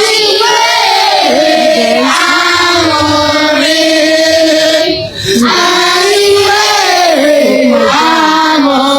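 Voices singing a slow, melodic song with long held notes, with a brief break about five seconds in.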